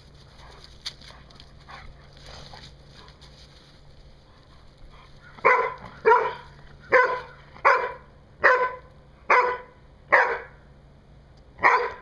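A Labrador barking in play during a tug-toy game: eight sharp barks about 0.8 s apart, starting about halfway through.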